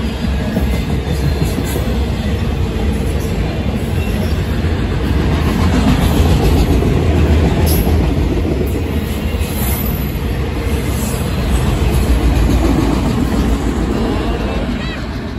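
Freight train of autorack cars rolling past close by: a steady rumble and clatter of steel wheels on the rails, loudest in the middle and easing off near the end as the last cars go by.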